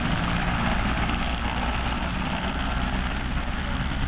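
Helicopter running on the ground on its skids with the main rotor turning: a steady engine whine over a low, even rotor and engine drone.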